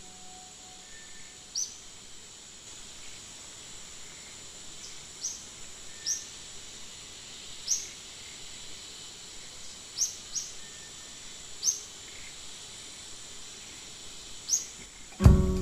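Short, rising bird chirps repeat every second or two over a faint, steady high tone. Louder plucked-string background music starts near the end.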